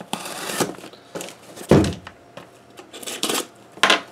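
Packing tape on a cardboard shipping box being slit and pulled, with short scraping and rustling sounds, a loud thump a little before halfway as the box is shifted on the table, and a sharp click near the end as the metal tool is laid down on the wooden tabletop.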